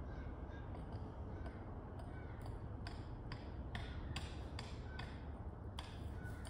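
Small paint roller being worked back and forth in a plastic paint tray to load it with paint, giving a run of short clicks and ticks from about two seconds in, over a steady low hum.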